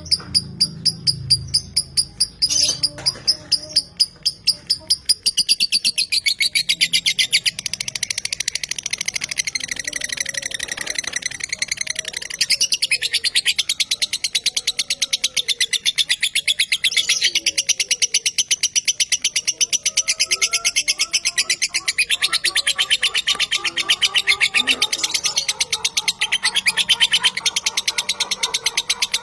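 Lovebird singing a long, rapid, high-pitched chattering trill (the 'ngekek'). It starts as separate sharp chirps and after about five seconds runs together into one continuous fast chatter.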